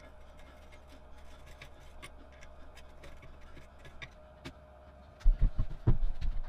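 Cast-iron drill press parts being fitted onto the steel column: faint clicks and light metal scraping, then, a little over five seconds in, several heavy low thuds as the cast-iron table is handled.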